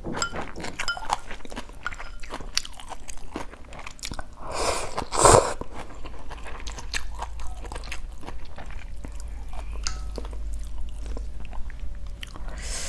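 Close-up mouth sounds of a person eating instant noodles in broth: steady wet chewing with many small clicks and smacks, and a louder slurp about five seconds in.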